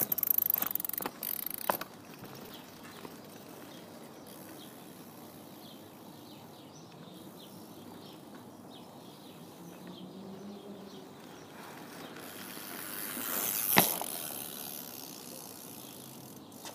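Mini BMX bike being ridden around the camera. There are clattering knocks in the first two seconds as it sets off. Then comes the faint rolling and ticking of the bike further away, swelling as it passes close at about 13 seconds with a sharp knock at its loudest.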